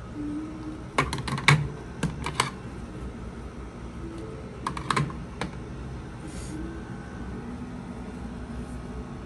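Sharp clicks and taps in two quick clusters, one about a second in and another about five seconds in, over a steady low background hum.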